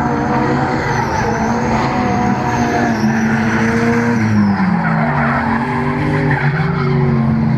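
Drift cars sliding through a corner: engines running hard with tyres squealing and skidding on the tarmac. The engine note dips and climbs again about four to five seconds in.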